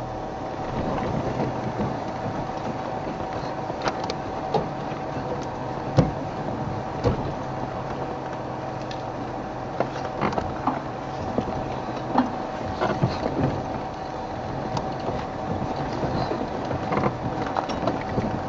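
Game-drive vehicle's engine running with a steady hum as it drives slowly off-road through grass and bush, with scattered knocks and clatters throughout.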